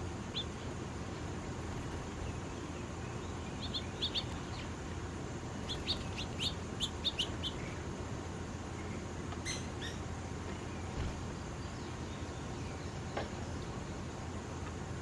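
Small birds chirping: scattered short high chirps, with a quick run of them about six to seven seconds in, over a steady low background hum.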